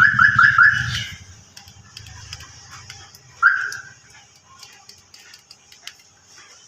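Suzuki Celerio's central-locking alarm siren chirping: four quick chirps in the first second, then a single chirp about three and a half seconds in, sounding as the lock system is being coded.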